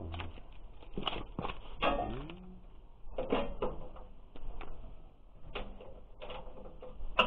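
Scattered clicks and knocks of metal hand tools being handled, with a few short pitched sounds in between, one sliding up in pitch about two seconds in.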